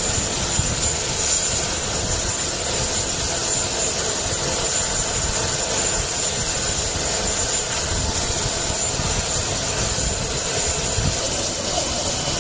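Aircraft turbine engine running steadily: a loud, even drone with a thin high whine held on top of it.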